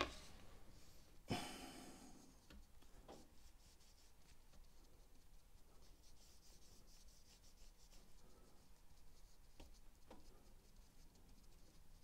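Faint scratching and rubbing of a paintbrush's bristles dabbed and dragged across canvas as white acrylic is laid on, with one sharper scuff a little over a second in.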